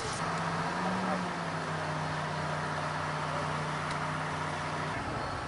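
Crane engine running steadily, a low even hum that rises slightly about a second in and cuts off near the end.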